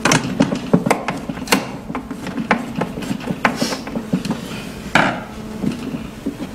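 Hands and a screwdriver working on the plastic housing of a 3D sublimation vacuum machine: a quick, uneven run of small clicks and knocks, with a brief scrape about three and a half seconds in and a louder knock about five seconds in.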